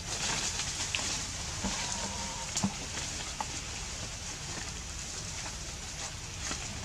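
Leaves and twigs rustling and crackling as a macaque climbs through a tree branch, with a few sharp snaps, the loudest about two and a half seconds in.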